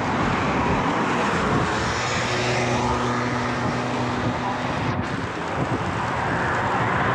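Steady rushing road and air noise of riding a bicycle in a group on an open road. From about two seconds in, a motor vehicle's engine hums at a steady pitch for a few seconds.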